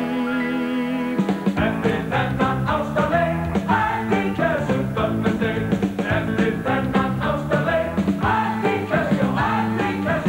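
Live pop-rock band music. A long held note with vibrato gives way about a second in to an upbeat rock-and-roll passage with electric bass guitar.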